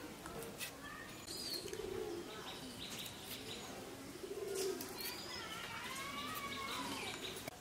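Birds calling in the background: several short rising and falling chirps and whistled gliding calls over a low, warbling call.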